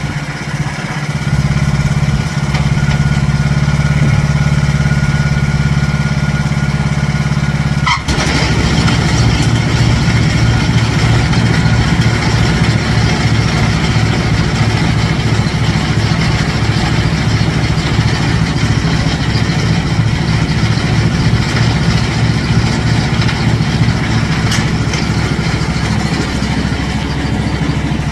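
Riding lawn mower engine running steadily. About eight seconds in there is a sharp click and a brief dip, after which the engine note changes to a lower, pulsing sound.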